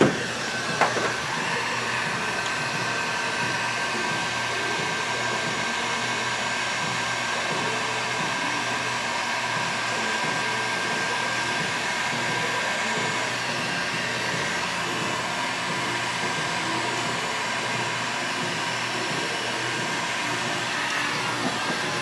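Cordless heat gun running steadily, its fan blowing with a steady whine over it, shrinking heat-shrink tubing onto a freshly soldered wire splice. It cuts off near the end.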